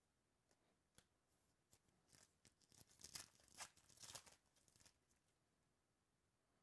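Foil trading-card pack being torn open by hand: a quick run of crinkling rips in the middle, after a faint click about a second in.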